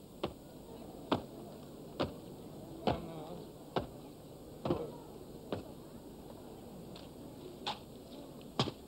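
Marching soldiers' boots stamping in step on stone paving as a ceremonial guard goose-steps, sharp single steps a little under a second apart, with a break of about two seconds past the middle before two more stamps.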